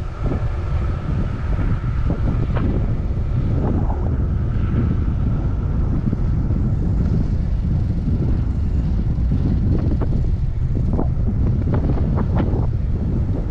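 Wind buffeting the microphone on a moving VanMoof A5 e-bike, a steady low rumble. A faint, steady high whine runs through the first half.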